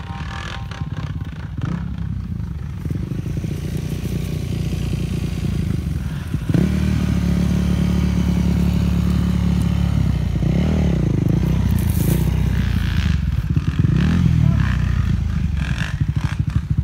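Dirt bike engine running close by. For the first few seconds there is a rougher rumble with clatter. About six seconds in the engine comes in loud and steady, and its pitch rises and falls briefly twice, like small throttle blips.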